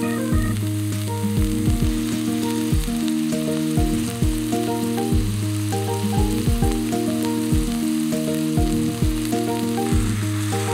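Steak sizzling in hot oil in a cast-iron skillet, a steady frying hiss, under background music with a steady beat.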